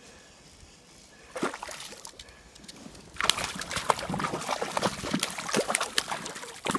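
Hooked fish thrashing at the surface of the lake, breaking into continuous splashing about three seconds in.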